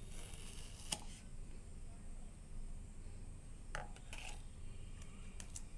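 Steel spoon scraping and tapping in a plastic tub of ice cream: a short scrape at the start, one sharp tap about a second in, then a few light clicks near the end.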